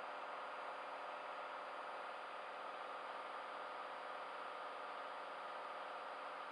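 Steady drone of a Cessna Skylane's engine and propeller in flight, an even hiss-like cabin noise with no change in pitch or level.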